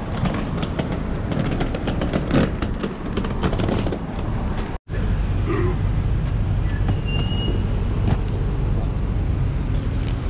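Street traffic noise with a car engine running close by, and scattered clicks and knocks. The sound drops out for an instant about halfway through, then a steady low engine hum carries on.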